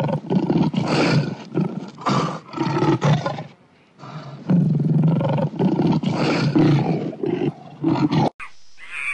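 Recorded lion roar played by an augmented-reality 3D lion on a phone: a long series of roars, a pause of about a second, then a second series that cuts off suddenly near the end.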